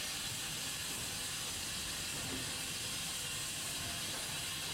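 Steam locomotive venting steam with a steady, even hiss.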